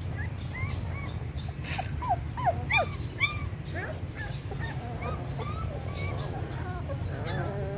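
Young puppies whimpering: a string of short, high-pitched squeaks and whines, a few of them louder a little under halfway through.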